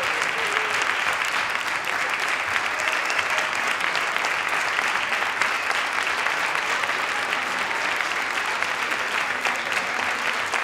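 Audience in a ballroom applauding steadily after a tango performance, dense continuous clapping.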